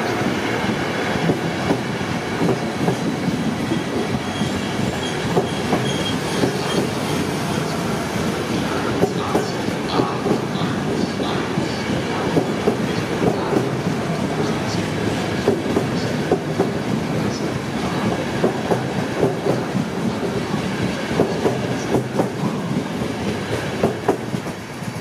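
Passenger coaches of an ÖBB train rolling past at close range, the wheels giving an uneven run of clicks over the rail joints. The sound falls away near the end as the last coach goes by.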